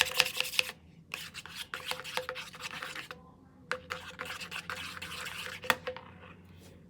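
Glue and shampoo slime mixture being stirred in a container: scratchy scraping and clicking in spurts, with two short pauses, about a second and three seconds in.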